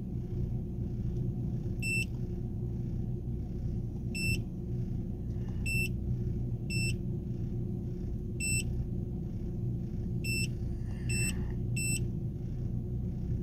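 Handheld OBD2 code reader beeping at each button press, about nine short high beeps at uneven intervals as its menus are stepped through. Under them, the steady low rumble of the car's engine idling, heard inside the cabin.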